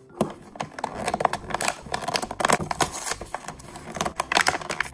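Clear plastic blister packaging crinkling and crackling as it is pulled open by hand, with a dense run of irregular snaps and rustles.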